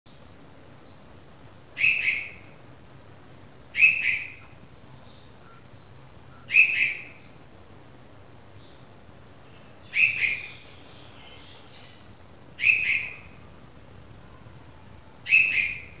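Red-vented bulbul fledgling calling: six short two-part calls, spaced about two to three seconds apart.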